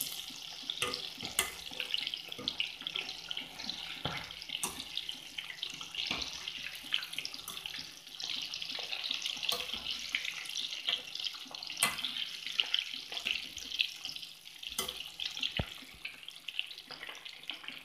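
Marinated chicken pieces deep-frying in hot oil in a metal kadai on a low flame, a steady sizzle with dense crackling, the second side frying after the pieces were turned. A few sharp clicks of the metal strainer knocking against the pan.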